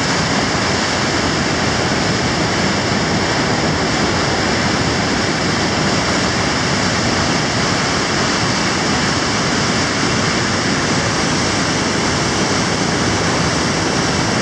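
River rapids pouring over rock slabs: a loud, steady rush of churning whitewater.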